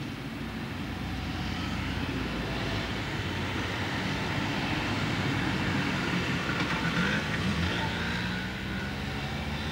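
Street traffic noise, with a motor vehicle's engine running steadily.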